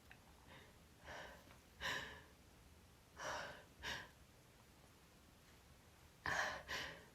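A woman's sharp, breathy gasping inhalations in about three pairs, with short pauses between: the catching breaths of a sneeze that is building but not yet coming, brought on by sniffing chhinkni sneezing powder.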